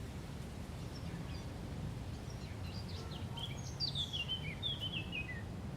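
A songbird singing a short phrase of quick chirped notes that step down in pitch, starting about three seconds in, over a low steady outdoor rumble.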